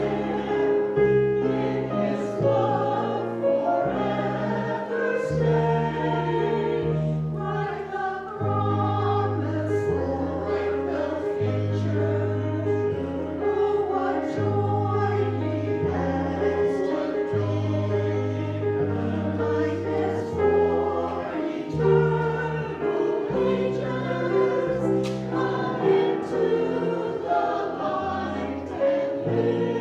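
A choir singing a slow hymn over instrumental accompaniment with held bass notes that change every second or so.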